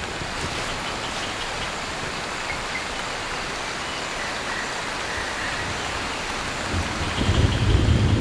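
Heavy tropical rain pouring steadily onto rainforest leaves. Near the end a low rumble of thunder builds.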